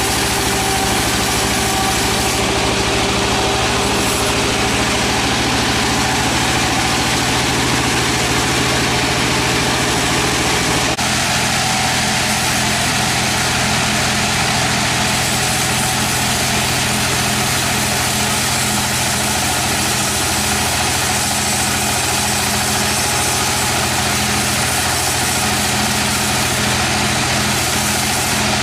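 Sawmill machinery running with a steady engine hum; the sound changes abruptly about eleven seconds in.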